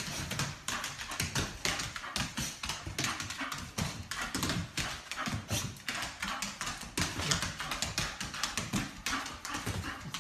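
A small dog's claws clicking and scrabbling rapidly on a wooden parquet floor, many quick irregular clicks a second with soft thuds among them.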